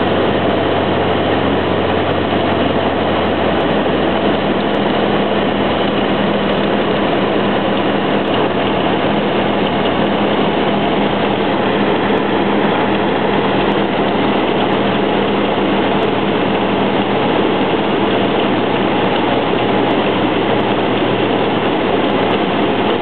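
Steady drone of a Cessna 172's piston engine and propeller heard from inside the cabin in flight, a loud even rumble with airflow noise.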